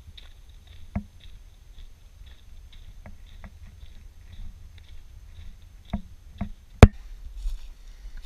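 Scattered, uneven footsteps and light knocks of a walker on a dirt trail, over a low rumble. One sharp knock a little before the end is the loudest.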